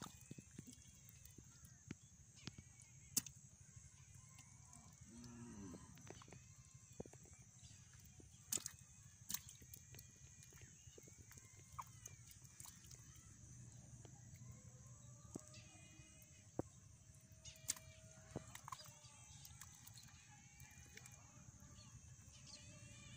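Mostly near silence: faint wet sloshing and scattered sharp clicks and splashes of hands and a metal bowl scooping in watery mud, over a steady high buzz. A few faint animal calls come through.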